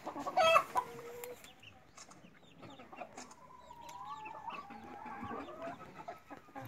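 Brown hens clucking and calling in a wooden coop, with a loud short squawk about half a second in and a long, wavering call from about three seconds in.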